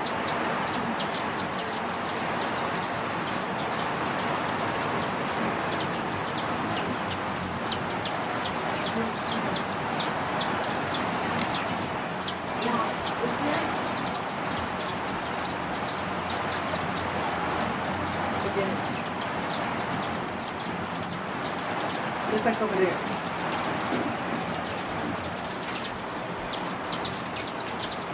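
A swarm of hummingbirds feeding: a steady high-pitched whine from many beating wings, with frequent short chips over it.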